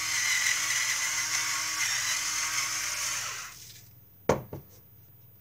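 Battery-powered electric pepper mill grinding pepper, a steady whirring motor that stops about three and a half seconds in. A single sharp knock follows as the mill is set down on the counter.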